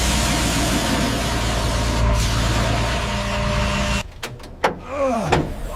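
A large vehicle's engine running under a steady, loud hiss of air, which cuts off abruptly about four seconds in. A few short falling squeaks follow.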